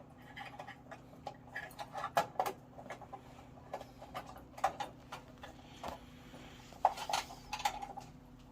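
Small scattered clicks, taps and knocks of metal and plastic parts being handled while an immersion heater thermostat is fitted, over a faint steady low hum.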